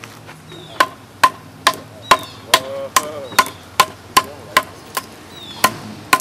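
A stone-bladed adze chopping into a wooden log, about two sharp, dry strikes a second, each biting out chips. There is a brief pause about five seconds in.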